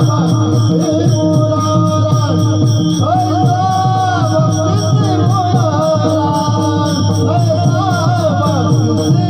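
Kirtan bhajan: voices singing a devotional melody over steady held tones, with hand cymbals (taal) keeping a fast, even rhythm.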